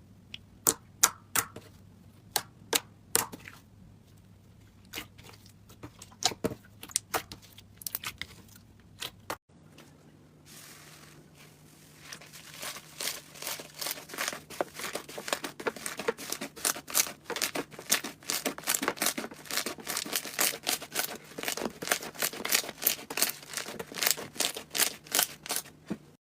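Slime being squeezed and pressed by hand, giving sharp pops and clicks: scattered single pops at first, then, after a cut, a dense rapid crackling.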